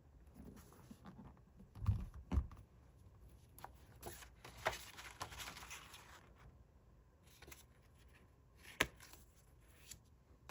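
A leather-bound book being handled by hand: two soft low thumps about two seconds in, then paper rustling of pages being turned, and a single sharp click near the end.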